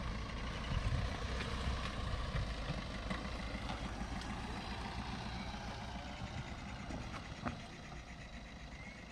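Maruti Suzuki Swift hatchback driving around on dry gravelly ground, its engine running steadily, with one short click about seven and a half seconds in.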